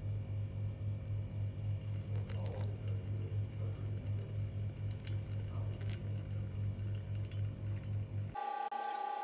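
A steady low hum pulsing about four times a second, with faint ticks and clinks of hot water being poured onto coffee grounds in a pour-over dripper. A little before the end the hum cuts off suddenly and a steady high tone takes over.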